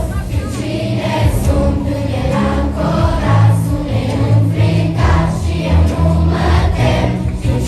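A large group of children singing together in chorus over accompaniment with a strong bass line.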